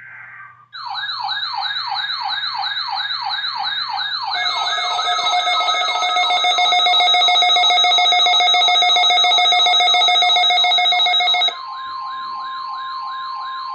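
Weather alert radio alarm sirens going off in response to a NOAA Weather Radio test broadcast: a rapid up-and-down siren sweeping about three times a second, joined about four seconds in by a louder steady multi-tone alarm that cuts off abruptly shortly before the end. Near the end the steady single-pitch NOAA warning alarm tone sounds under the siren.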